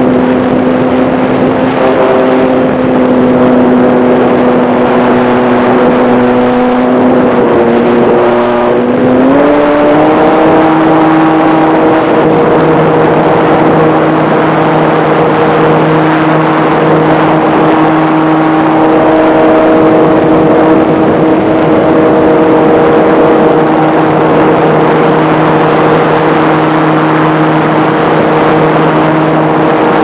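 Model aircraft's motor and propeller, recorded from on board, running steadily under power over a constant rush of air. The pitch steps up about nine seconds in as the motor speeds up, then holds.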